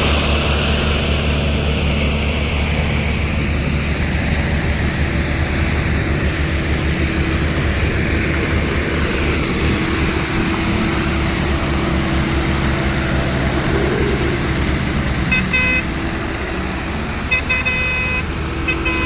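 A vehicle engine running steadily, with brief horn toots about fifteen seconds in and a few more near the end.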